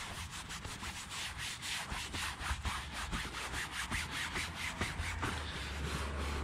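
Horsehair brush scrubbing a wet, cleaner-lathered fabric convertible top in quick back-and-forth strokes, about five or six a second.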